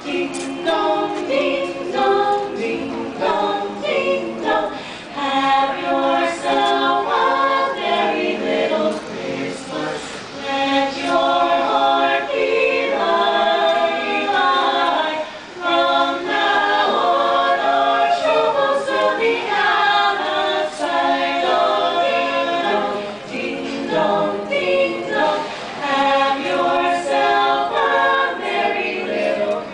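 A small group of carolers, women and a man, singing a Christmas carol a cappella in harmony, with short breaks between phrases.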